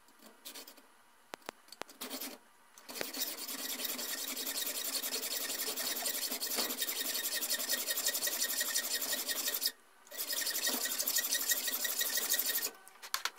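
Hand hacksaw cutting through a steel SKS rifle barrel. A few light taps come first as the blade is set in the cut, then a steady run of back-and-forth sawing strokes from about three seconds in. The sawing pauses briefly near ten seconds and stops shortly before the end.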